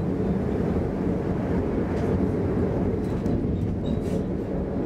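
Steady running rumble of a commuter train, the wheels rolling on the track, heard from inside the carriage.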